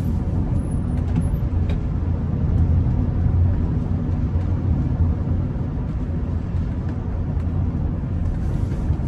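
Steady in-cabin driving noise of a Rolls-Royce Silver Spirit: a low, even rumble with tyre noise from a wet road.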